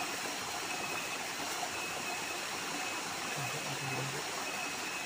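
Small waterfall splashing into a rocky pool: a steady rush of falling water.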